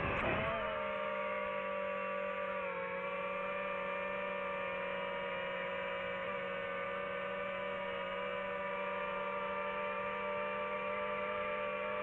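DJI FPV drone's motors and propellers whining, heard from the drone itself. The pitch shifts and wavers for the first half-second as it comes out of a manoeuvre, then holds almost steady as it hovers.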